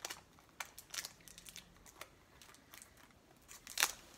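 Small cardboard gift box being handled and opened: a few short rustles and scrapes of the packaging, the loudest near the end.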